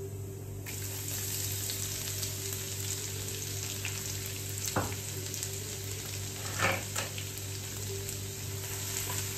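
Chopped garlic frying in hot oil in a nonstick pan: a steady sizzle that starts up sharply less than a second in as the garlic drops into the oil with the dried red chillies and cumin seeds. A few light knocks come around the middle.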